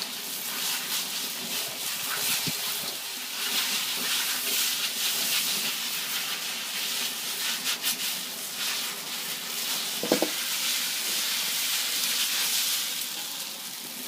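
Wide rice noodles sizzling steadily in a hot wok over a high flame. There are a few sharp clicks and one louder knock about ten seconds in.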